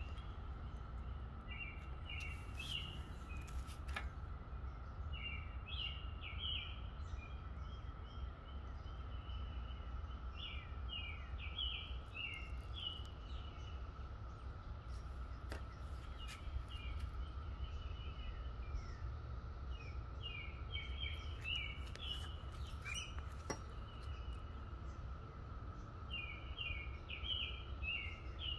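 Steady, even-pitched drone of a periodical cicada chorus, with a songbird repeating a short burst of chirping notes about every four to five seconds, over a low rumble.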